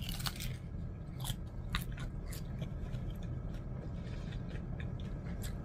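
Crisp crunching and chewing of an Old El Paso hard corn taco shell being bitten into and eaten, as a run of irregular sharp crunches.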